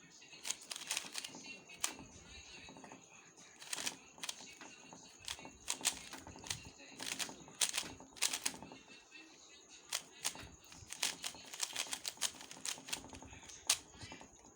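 A 3x3 puzzle cube being turned quickly during a solve: irregular runs of sharp plastic clicks as its layers snap round, coming in quick flurries with short pauses between them.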